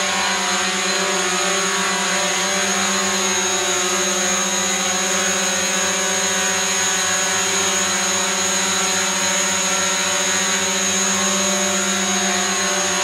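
DJI Mavic quadcopter hovering in place, its four propellers giving a steady whine whose pitch holds even.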